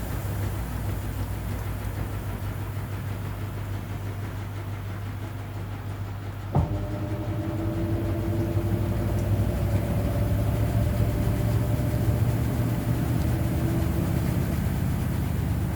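Hoover 800RL top-loading washing machine in its final spin, with a steady low hum throughout. The motor's whine drops out at the start, a click comes about six and a half seconds in, and then the whine returns and slowly rises as the drum picks up speed. This is the spin pulsing before it goes to full speed.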